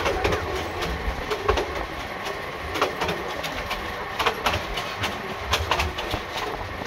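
Passenger train carriage running on the track, heard from an open door: a steady rumble with sharp clacks as the wheels cross rail joints, about one every second and a bit.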